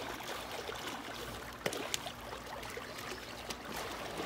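Pool water sloshing and splashing around two people grappling waist-deep, with a couple of short sharp splashes a little under two seconds in.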